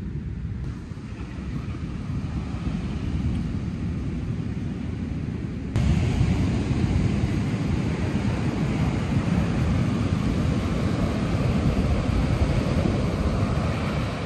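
Ocean surf breaking on a sandy beach, heard through heavy wind rumble on the microphone. About six seconds in, the sound turns suddenly louder and fuller.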